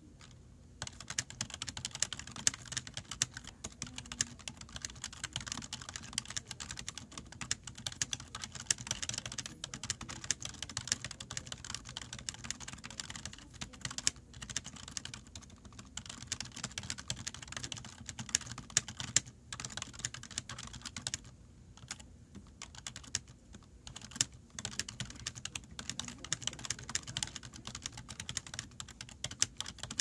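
Fast, continuous typing on a Solidtek ACK-260UA computer keyboard: a dense stream of key clicks starting about a second in, broken by a few brief pauses.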